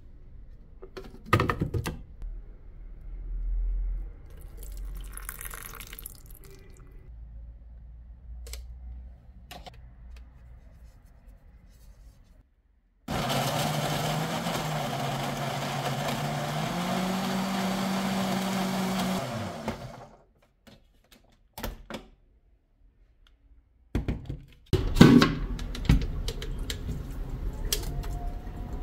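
Electric kitchen blender running for about six seconds midway, its motor hum rising in pitch in a couple of steps, then winding down and stopping. Scattered knocks and kitchen handling noise come before and after.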